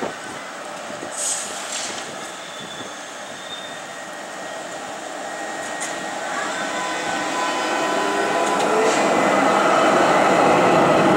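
Oslo SL79 articulated electric tram running past on street track: a steady rumble of steel wheels on rail with a faint motor whine and a few sharp wheel clicks. In the last few seconds a broad rushing noise swells to the loudest point.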